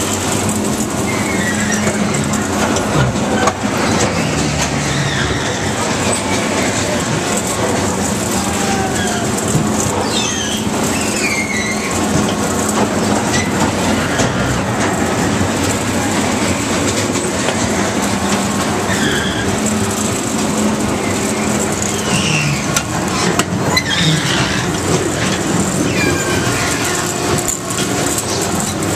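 Carnival ride running, heard from a rider's seat in its caged car: a continuous mechanical rumble and rattle with a steady hum underneath. Short high squeals come and go throughout.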